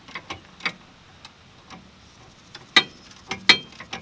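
Irregular metal clicks and clinks from hands and tools working on a rear brake caliper: a few light ticks, then louder, briefly ringing clinks in the last second or so.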